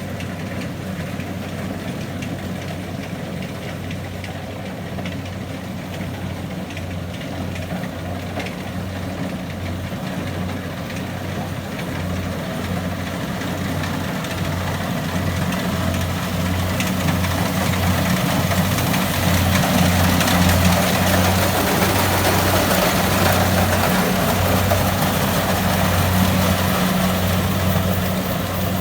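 Heavy diesel machine engine running steadily with a low pulsing hum, growing louder from about halfway through.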